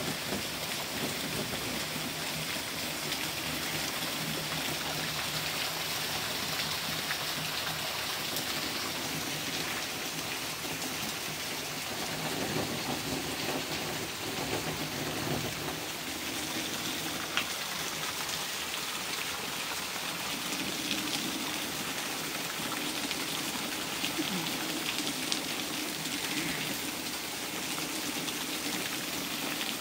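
Heavy rain falling steadily on garden foliage and a paved patio in a storm, an even hiss with a few sharper drop taps.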